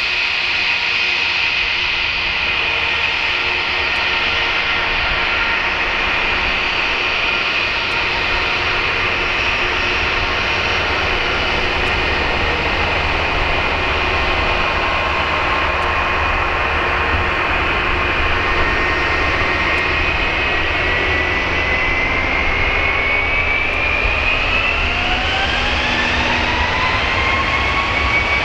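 Twin-engine British Airways Airbus jet at taxi power, its engines giving a steady whine over a rushing noise. About three-quarters of the way through the whine rises sharply in pitch as the engines spool up to take-off thrust on the runway.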